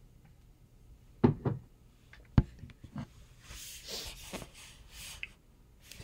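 A person's throat and breath noises at the microphone: a short cough-like sound about a second in, a few sharp clicks, then a breathy exhale lasting over a second.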